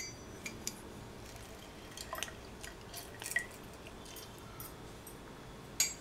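Lemon squeezed by hand over a drinking glass, juice dripping into it in scattered small drips and soft clicks, with one sharper clink of glass near the end.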